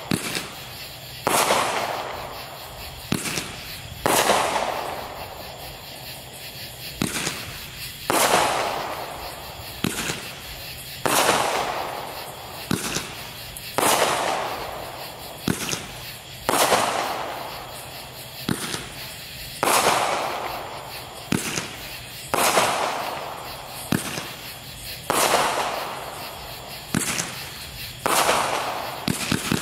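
Black Cat 'Two Minute Show' 500-gram multishot fireworks cake firing shot after shot, about ten times, roughly every three seconds. Each shot is a sharp launch pop followed by a louder burst in the air that fades over a second or so.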